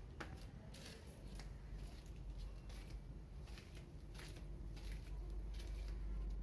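Footsteps scuffing on a concrete path at an uneven walking pace, over a steady low rumble.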